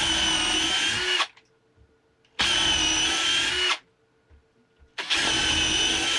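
Kielder cordless combi drill in second gear drilling holes in wood. Its motor runs at a steady pitch in three short runs of about a second and a half each, with pauses between.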